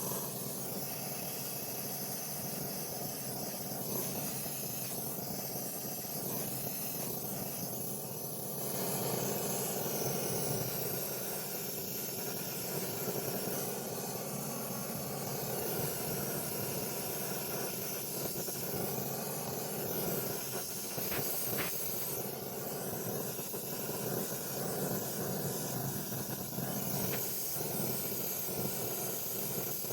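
A steady hiss of rushing gas that starts abruptly and holds evenly throughout.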